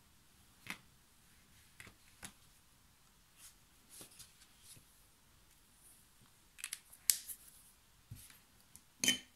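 Quiet scattered clicks and taps of a watercolour brush pen being worked on paper and then put down, with a louder cluster of clicks about seven seconds in and one sharp click near the end.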